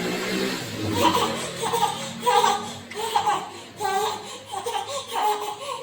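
Baby girl laughing in a string of short, high-pitched bursts, about two a second.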